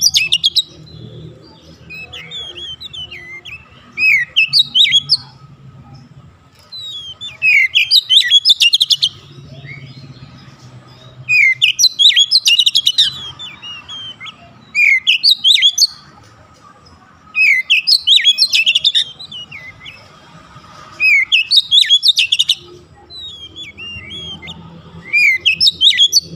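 Oriental magpie-robin singing in loud phrases of quick whistled notes sweeping up and down, each phrase a second or two long, repeated about every three to four seconds. A faint steady hum lies underneath.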